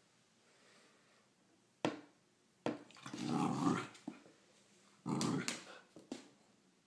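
A puppy growling in play: a sharp yap or knock about two seconds in, then a growl lasting about a second, and a shorter growl with sharp sounds near the end.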